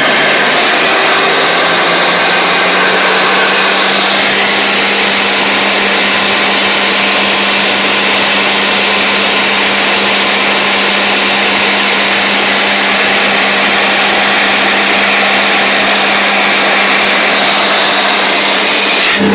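Atlas Copco XAS-350 diesel air compressor at full pressure with compressed air blasting out of it: a loud, steady rushing hiss over the engine's even hum. The hiss cuts off suddenly near the end.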